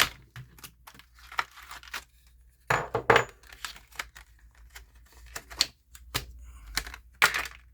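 Handling noises: scattered clicks and knocks with rustling as objects are picked up and moved on a hard surface. Louder scraping rustles come about three seconds in and again near the end.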